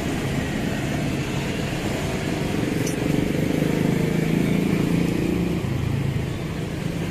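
Steady low rumble of engines running, swelling a little past the middle, with a single short click near the middle.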